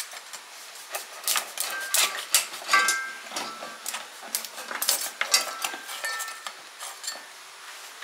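A knife chopping and cracking at the spiny shell of an Australian red rock lobster: a run of irregular clicks and knocks, with a few brief metallic rings.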